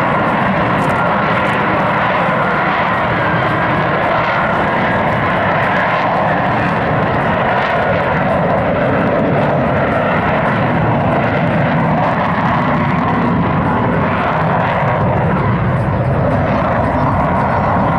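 Lockheed Martin F-35 Lightning II fighter's jet engine, a loud, steady noise that holds without a break.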